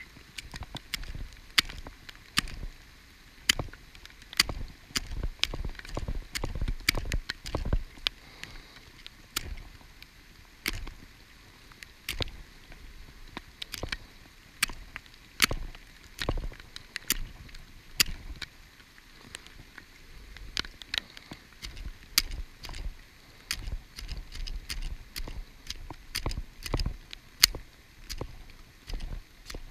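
Heavy rain, with big drops tapping sharply and irregularly close to the microphone over a faint steady patter, and now and then a low rumble.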